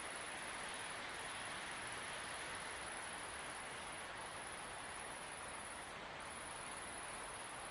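Steady wind across open country, with a continuous high-pitched insect chorus over it that breaks off briefly three times.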